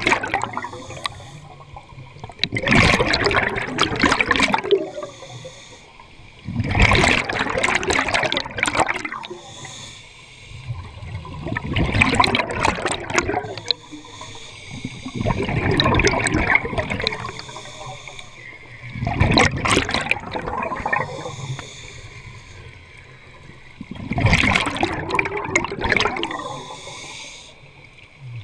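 Scuba regulator exhaling underwater: six bursts of bubbling, one every four to five seconds, with a quieter hiss between them as the diver breathes.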